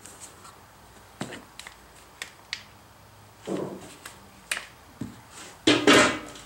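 Scattered small clicks and taps of a bolt and hand tools being handled on a small engine's cylinder head, with a louder clatter about six seconds in.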